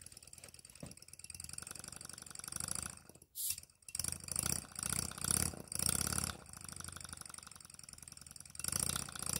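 Small model wobbler (oscillating-cylinder) engine running on compressed air, giving a rapid train of exhaust puffs with air hiss. It surges louder several times and cuts out briefly about three seconds in.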